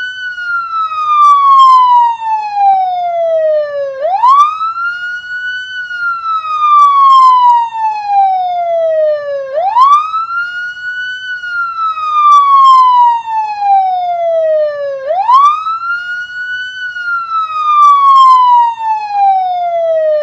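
Police car siren wailing: each cycle rises quickly in pitch, then falls slowly, repeating about every five and a half seconds, three rises in all.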